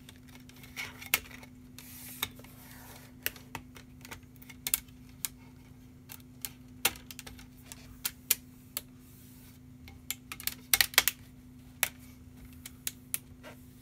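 Plastic screen bezel of an HP Pavilion gaming laptop being pressed onto the display lid by hand: a scattered run of sharp plastic clicks and snaps as it seats, with a quick flurry of them late on. A steady low hum runs underneath.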